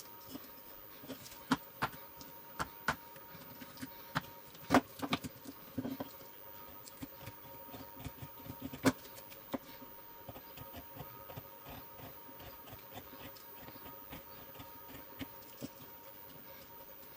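Small 4 mm wood chisel of a Swiss Army knife cutting into the bowl of a wooden spoon: irregular sharp clicks and short scrapes as chips are pushed off, loudest about five seconds in and again near nine seconds, thinning to light ticks later.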